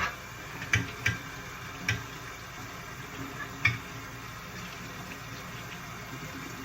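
A few light clicks and knocks of car trim parts being handled during cleaning, four in the first four seconds, over a steady faint hiss.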